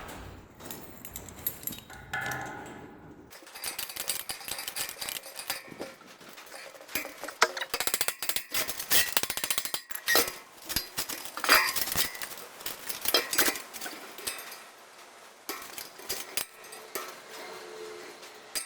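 Metal tools and parts clinking and knocking irregularly as a tiller's bearing housing is worked apart by hand.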